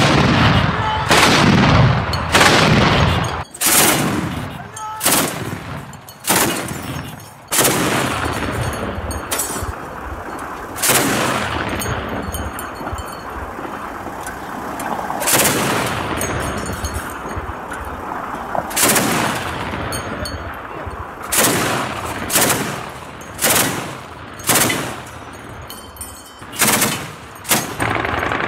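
Heavy gunfire: loud single shots, each followed by a long rolling echo, at irregular gaps of one to four seconds, coming closer together near the end.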